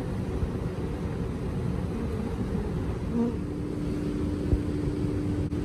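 Honey bees buzzing over a steady low rumble; from about three seconds in a single wingbeat hum holds at one steady pitch.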